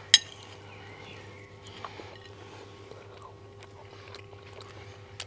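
A single sharp, ringing clink of cutlery just after the start, then a quiet room with a faint steady hum and a few small soft clicks.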